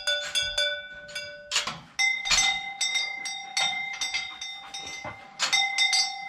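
Cowbells worn by cattle clanging irregularly as the animals move, several strikes a second, each strike left ringing. At least two bells of different pitch sound, a lower one giving way to a higher one about a second and a half in.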